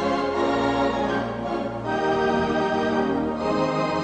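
Background organ music: held chords that change every second or two over a low bass note.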